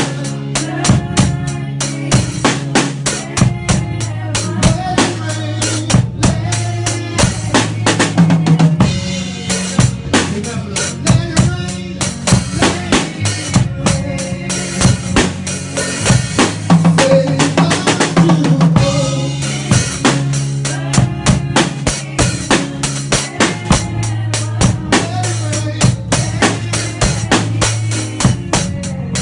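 Live worship band music driven by a drum kit: kick and snare keep a steady, busy beat over sustained low bass notes, with no singing.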